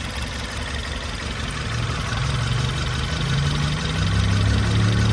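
2018 Ford Taurus four-cylinder turbo engine running rough with a misfire, stumbling and shaking. The misfire is in cylinder 1 (code P0301).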